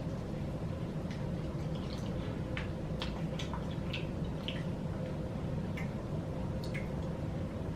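Close-miked chewing of fried chicken: irregular wet mouth clicks and smacks over a steady low background hum.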